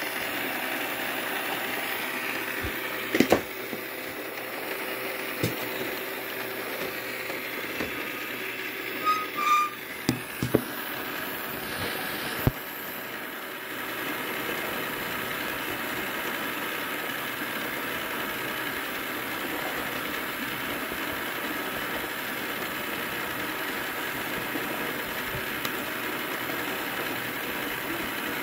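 Motor-driven toy plastic gear set running: a steady mechanical whir with the chatter of plastic gear teeth meshing. A few knocks and clicks come in the first half.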